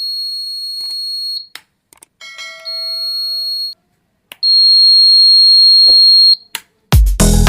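A DIY wireless door alarm sounds a steady, high-pitched electronic tone three times, the last the loudest, with sharp clicks between them. A brief chime-like ding rings about two seconds in.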